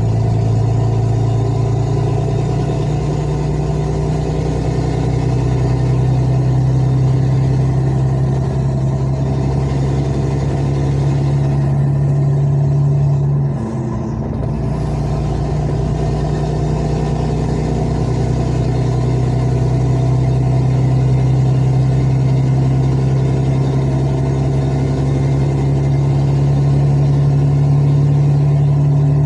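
Truck's diesel engine running steadily while crawling in traffic, with a brief dip in level about halfway through.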